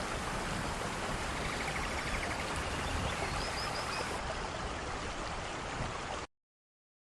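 Steady rain falling, an even hiss of drops, cutting off abruptly about six seconds in.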